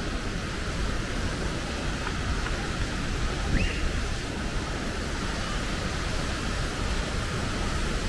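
Steady rush of water from a mountain stream or waterfall, with a short faint high chirp a little before halfway.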